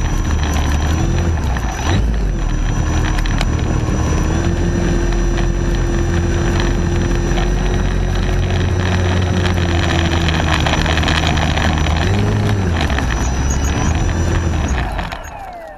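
The motor and propeller of an Aeroworks Extra 260 RC model airplane running on the ground, heard from right under the plane. It holds a steady pitch, rises and falls briefly about twelve seconds in, and drops away quickly near the end.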